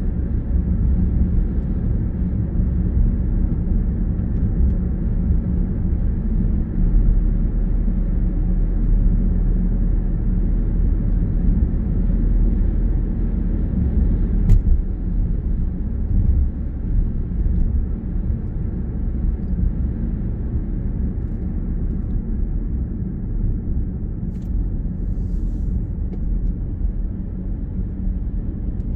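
Steady low rumble of a car driving, heard from inside the cabin: engine and tyre-on-road noise. A single sharp click about halfway through.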